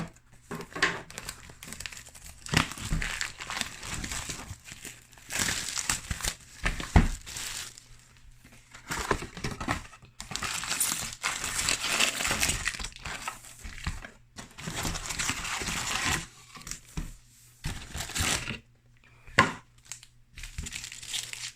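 Plastic shrink-wrap crinkling and tearing in irregular bursts as it is peeled off a sealed trading-card booster box.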